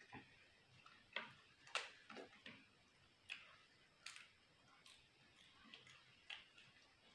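Crisp papad (fried lentil wafer) cracking as it is bitten, chewed and snapped by hand: a handful of short, sharp crunches at uneven intervals, the loudest about two seconds in.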